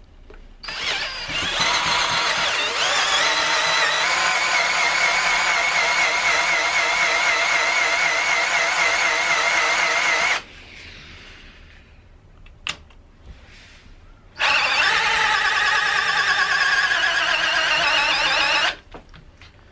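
Power drill spinning an automatic fastener with a left-hand thread clockwise into the core bore of an aluminium extrusion profile, a high wavering squeal in two long runs with a pause of about four seconds between. Turned the wrong way, the fastener drills a hole in the profile instead of threading in.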